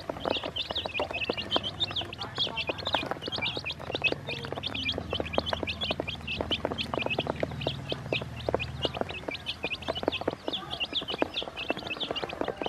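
A brood of baby chicks peeping constantly in many overlapping high chirps, with quick tapping of their beaks pecking feed off the plastic basin.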